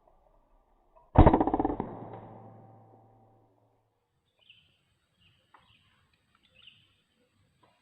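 A single air-rifle shot about a second in, loud and sudden, with its echo dying away over about two seconds. Short bird chirps follow in the second half.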